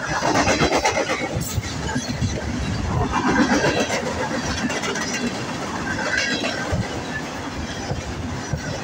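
Freight cars of a long Canadian National mixed-freight train rolling past close by. Their steel wheels run on the rails in a continuous rumble, with irregular knocks and swells of noise.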